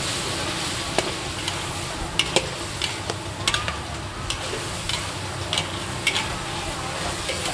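Stir-frying in a large steel wok: two metal spatulas scrape and clink against the pan in irregular sharp strokes while sliced mushrooms and meat sizzle steadily in the oil.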